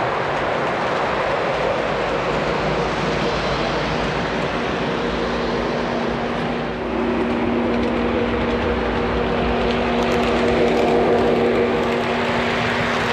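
O-scale three-rail model locomotive running on track: wheels rolling on the rails along with the onboard sound system's diesel engine sound, a steady mechanical hum and rumble. A steadier engine tone grows stronger about halfway through.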